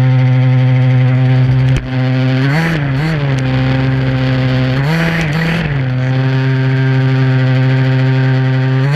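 HPI Baja SS's two-stroke gas engine running at steady high revs, with a few short throttle blips that push the pitch up briefly. A short break in the sound just under two seconds in.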